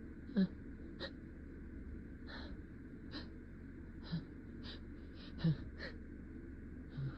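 A person's quick gasping breaths while trying to hold back a sneeze, about ten short intakes with a few small voiced catches. The loudest come about half a second in and five and a half seconds in.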